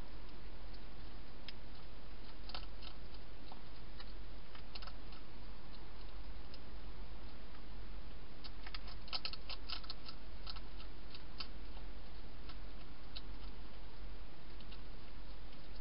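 Steady low electrical hum and hiss with irregular faint clicks and ticks, coming in a dense flurry about nine seconds in.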